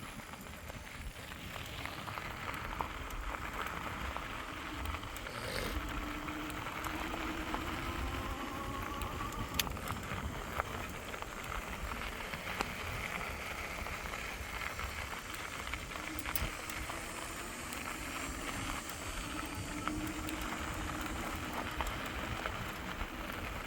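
Vehicle driving slowly along a rough dirt track: steady tyre and road noise with the engine note rising and falling a little.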